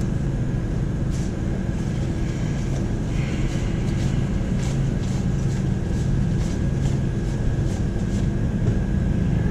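Steady low mechanical hum, like ventilation or kitchen equipment, with faint scattered clicks over it.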